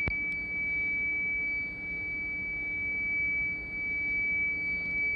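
A steady high-pitched tone held unbroken for about five seconds over a low rumble, with a sharp click at the very start.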